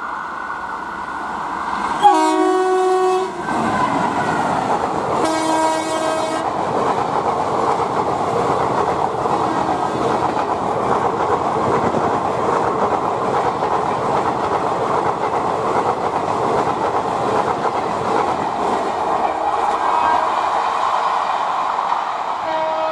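Train horn sounding twice, a blast about two seconds in and a shorter one about five seconds in, then an express train hauled by an electric locomotive passing close at speed, a steady rumble with the clatter of wheels over the rails. Another horn starts right at the end.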